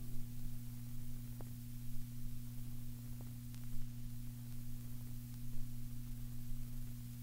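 Silent groove between tracks on a vinyl LP: a steady low electrical hum under faint surface hiss, with a few isolated clicks from the record surface.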